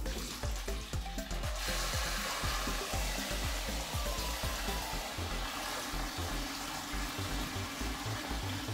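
Hot water from a kitchen tap running steadily into a glass bowl of peeled beans, starting about a second and a half in and cutting off near the end. Background music with a steady beat plays underneath.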